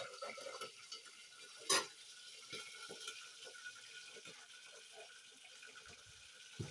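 Steady hiss of a pot of water heating toward the boil on a gas burner, for parboiling rice. Two sharp knocks, one at the very start and a louder one a little under two seconds in, with a few light ticks between.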